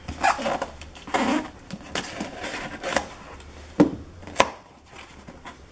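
Scissors slicing through packing tape along the seam of a cardboard box, with cardboard scraping and rustling as it is handled. Two sharp clicks come a little under four seconds in and about half a second later.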